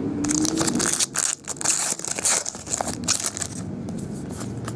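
Foil wrapper of a trading-card pack crinkling as it is torn open by hand, a couple of seconds of broken crinkling, followed by quieter handling of the cards.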